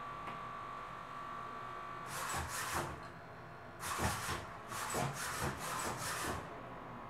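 Servo motors of a hexapod walking robot whirring in short rough bursts as its legs step and shift: a pair of bursts about two seconds in, one about four seconds in, then a quick run of them from about five to six seconds, over a faint steady whine before the first ones.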